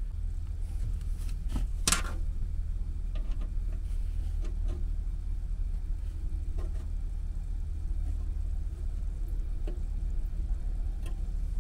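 Scattered small metallic clicks and taps of a socket tool and bolts being worked at an inverter's battery terminals, the clearest about two seconds in, over a steady low rumble.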